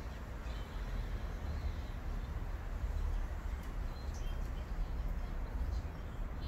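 Outdoor background: a steady low rumble with a few faint, short bird chirps.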